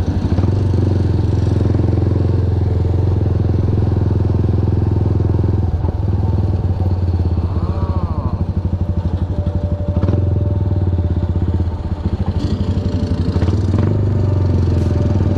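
Motorcycle engine running at a steady cruise, heard from the rider's seat, with a fast even firing pulse; the throttle eases off briefly late on.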